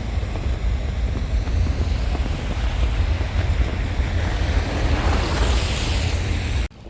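Snowstorm wind buffeting the microphone: a heavy low rumble under a steady rush of wind that swells about five seconds in, then cuts off abruptly near the end.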